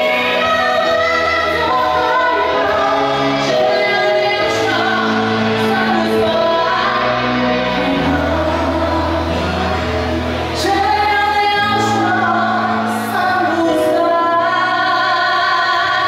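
A woman singing a song with a Chinese traditional orchestra accompanying her.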